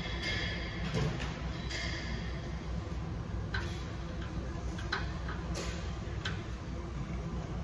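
Gym room noise: a steady low hum with a few short, sharp clicks and ticks scattered through it.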